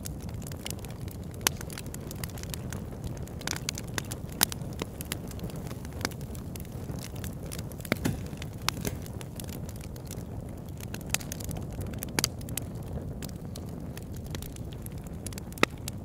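Log fire burning: a steady low rush of flame with irregular sharp crackles and pops scattered through, a few pops standing out louder than the rest.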